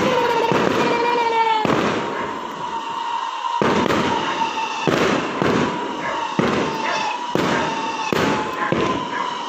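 Aerial fireworks shells bursting: a dozen or so sharp bangs at irregular intervals, over a steady high tone.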